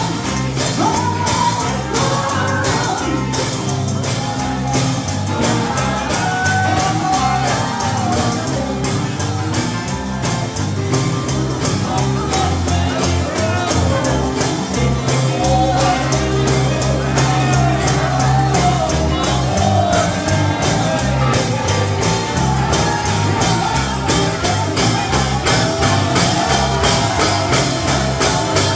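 Live gospel music: a singer's voice over a band with bass and a steady percussion beat, with voices calling out along with it.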